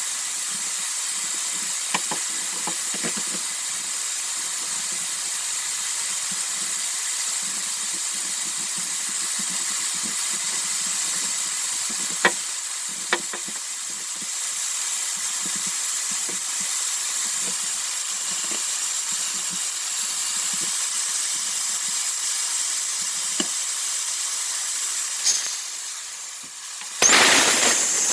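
A steady hiss, with a few faint clicks and knocks about two, twelve and thirteen seconds in. Near the end there is a loud, brief rush of noise.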